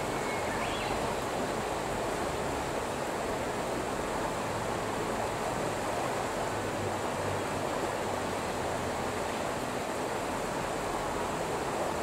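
Mountain stream running over rocks and through a shallow riffle: a steady, even rush of water.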